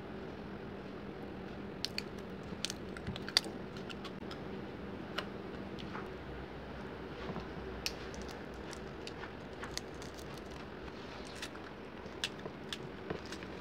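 Scattered small clicks and crackles of a glued-in smartphone battery being pried and peeled out of its plastic frame, over a steady low hum.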